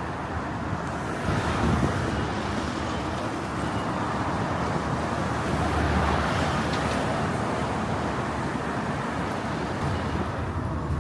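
Road traffic: cars passing by, a steady rush of tyre and engine noise that swells about a second in and again around the middle.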